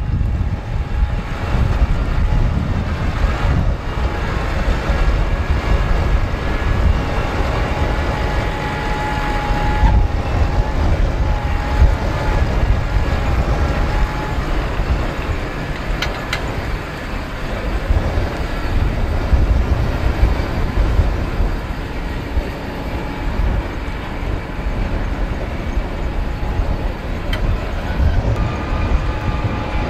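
Tractor engine running steadily, a deep rumble with a faint whine over it that wavers in pitch in the first half.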